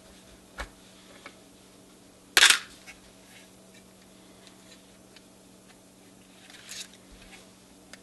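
Metal clicks from a NuTone door chime base as its stuck solenoid plungers are worked out of their bores, with one loud sharp snap about two and a half seconds in and softer clicks before and near the end.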